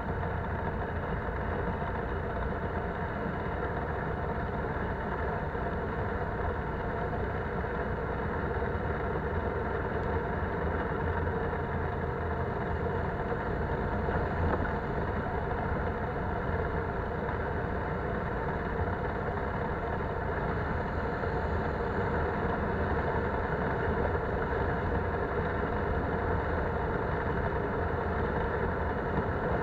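Polaris Sportsman 570 ATV's single-cylinder engine running steadily under way, heard from a camera mounted on the machine, with the rumble of riding.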